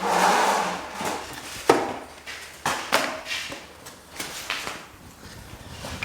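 Irregular knocks and scrapes from drywall taping work, with a scraping rush in the first second and the sharpest knock just before two seconds in.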